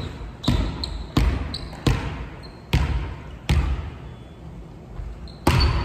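A volleyball bounced on a hardwood gym floor five times, about one bounce every three-quarters of a second, each echoing in the hall, then a harder hit about five and a half seconds in, a serve.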